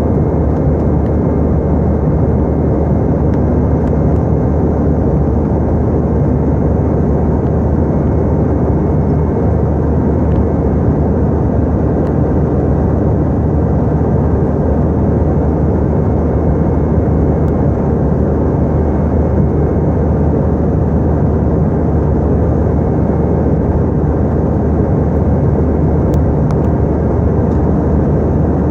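Airliner cabin noise in flight: the steady, even noise of the engines and airflow, strongest in the low range, with a faint steady hum underneath.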